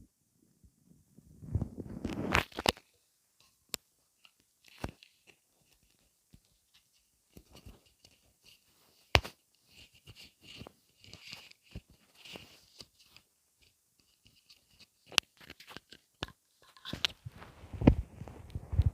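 Gurgles, pops and clicks from gas moving through an empty stomach, scattered and irregular, with denser bursts of gurgling about two seconds in and again near the end.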